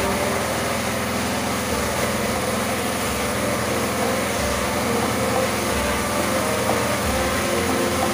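Pressure washer running steadily, its water jet spraying against a motorcycle's engine and wheel to rinse off the foam.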